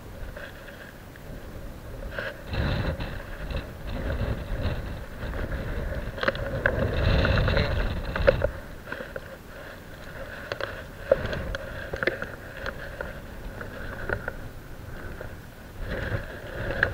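Spinning fishing reel being cranked to retrieve the line: a steady whir with small clicks. Wind rumbles on the microphone, strongest between about two and eight seconds in.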